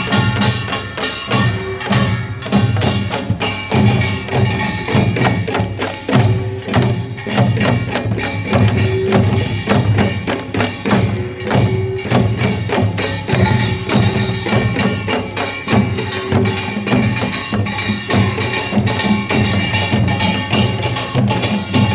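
Korean pungmul percussion band playing: dense, fast strikes of small hand gongs and drums over a steady driving rhythm.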